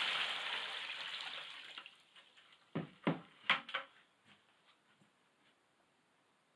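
Water pouring from a plastic bucket into a plastic tub, the stream tapering off over the first two seconds. A few sharp knocks follow as the emptied bucket is set down on the floor.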